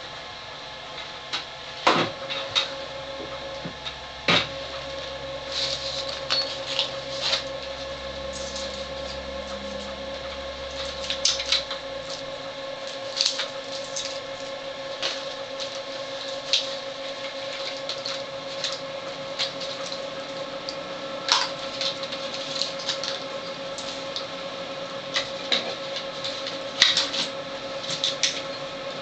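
Plastic crinkling and clicks from unwrapping a dialysis cartridge and fitting it and its tubing into the machine, over a steady hum that starts after a sharp click about two seconds in.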